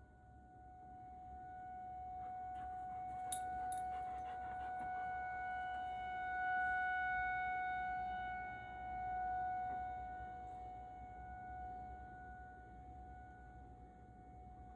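Outdoor emergency warning siren sounding one steady held tone, slowly swelling and fading in loudness, loudest about six and nine seconds in. Two sharp clicks come a little over three seconds in.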